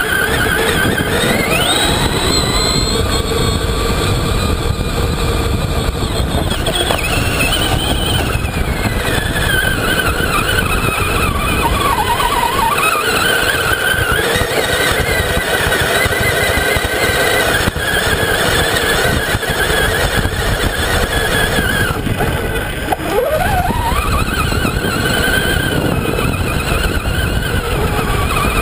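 Traxxas Summit RC truck's electric motor and geartrain whining, the pitch rising and falling with the throttle, over a heavy rumble from the drivetrain and tyres churning through sand. About three-quarters of the way through, the whine drops sharply and then climbs again as the truck lets off and accelerates.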